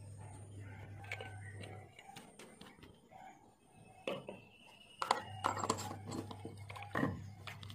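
Scattered clicks and knocks from plastic bowls and containers being handled, with a busier, louder cluster of knocks from about five to seven seconds in.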